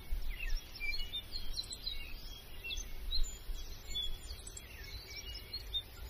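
Several small birds chirping in quick, short calls, many overlapping, over a low, uneven rumble.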